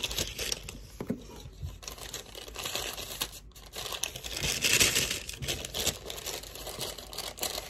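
Paper packaging rustling and crinkling as items are handled in a cardboard box, in irregular bursts, loudest about five seconds in.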